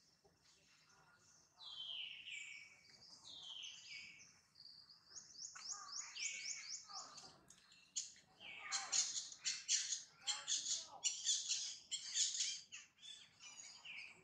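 Wild birds calling: a few high falling whistles in the first few seconds, then a fast, louder run of sharp chirps through the second half.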